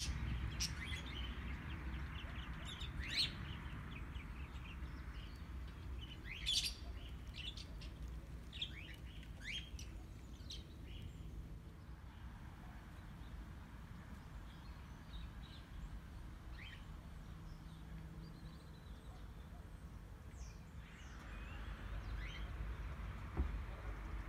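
Small birds chirping on and off in short, high calls, most of them in the first ten seconds, over a steady low outdoor rumble. A single sharp click near the end.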